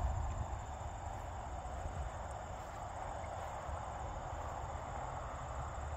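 Insects trilling steadily: a high-pitched, finely pulsing chorus like crickets in the grass, over a low steady rumble.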